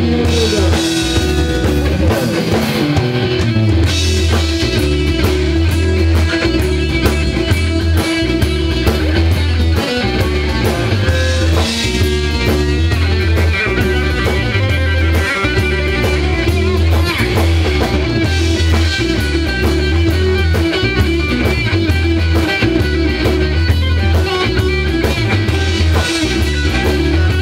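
Live blues-rock band playing electric guitar, bass guitar and drum kit, with a heavy, steady bass line under the guitar.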